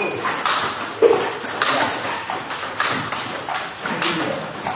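Table tennis ball repeatedly clicking off a paddle and bouncing on the table in a multiball forehand topspin drill, about one or two sharp clicks a second. The hitter's forehand is a short pimple-out rubber.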